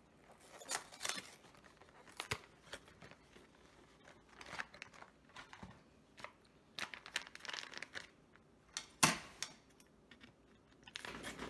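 Packaging crinkling and rustling: a single-serve brownie-mix pouch being pulled out of its cardboard box, in short irregular crackles with one louder one about nine seconds in.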